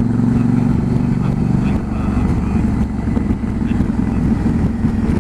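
Motorcycle engine running at riding speed with wind noise, heard from the rider's camera. The engine's hum is steady at first and grows rougher and less even about two seconds in.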